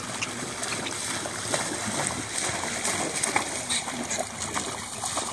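Two pugs paddling and splashing through shallow floodwater: a continuous wash of churned water with many small slaps and splashes.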